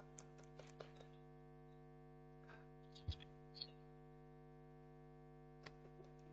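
Near silence with a steady electrical hum, broken by a few faint clicks and one duller thud about three seconds in.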